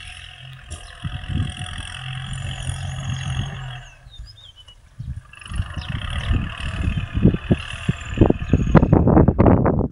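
Kubota L4018 tractor's diesel engine running steadily while ploughing at a distance, heard as a low hum over the first few seconds. From about halfway through, rough gusts of wind buffet the microphone, growing louder toward the end.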